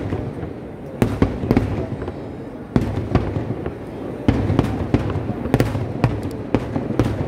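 Kerala temple-festival fireworks (vedikkettu) going off: an irregular string of sharp bangs, several in quick clusters, over a continuous low rumble.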